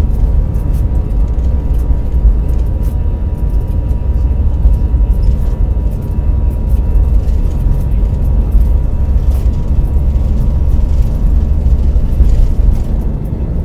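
Airbus A320's jet engines at takeoff thrust heard inside the cabin during the fast takeoff roll: a loud, steady rumble with a thin whine on top. Small knocks and rattles from the wheels running over the runway come through now and then.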